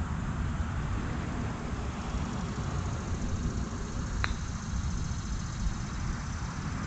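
A golf club strikes the ball once about four seconds in: a single sharp click. A steady low outdoor rumble runs underneath.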